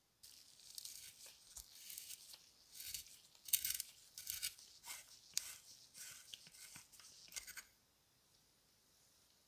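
Dry, scratchy rasping in short irregular strokes as a threaded brass tube is twisted out of the body of old opera glasses, its grimy threads scraping. It stops about three-quarters of the way through.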